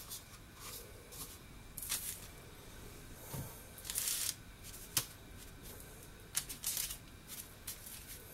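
Hands placing and pressing sugar-coated dough balls onto a parchment-lined baking tray: scattered rustles and scrapes of the paper and sugar, with a sharp tap about five seconds in.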